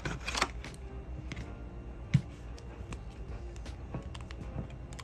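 Small clicks and taps of nail-product jars and bottles being handled, with one louder knock about two seconds in, over quiet background music.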